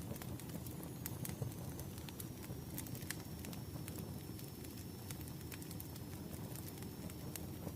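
Firewood burning: irregular sharp crackles and pops over a steady low rumble of the fire, with a faint high whistle running underneath.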